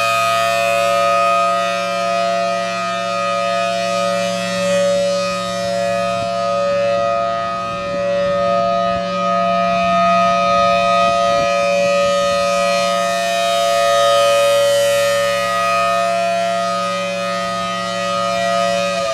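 Federal Signal Thunderbolt 1000AT rotating outdoor warning siren sounding a steady alert tone: a two-note chord from its 5/6 port ratio, loud, swelling and fading as the horn turns. Right at the end its pitch begins to fall as it winds down.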